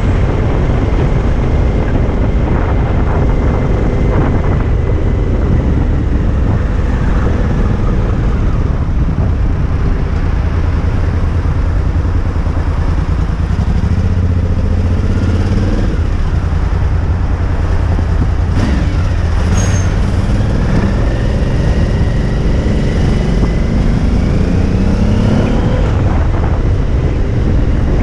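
Suzuki V-Strom motorcycle engine running in city traffic under a heavy low rumble, its note rising as it accelerates a little past the halfway point.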